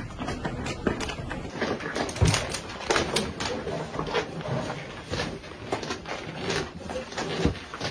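Footsteps of footballers moving quickly on a hard indoor floor, a run of short knocks and taps, with brief scattered voices.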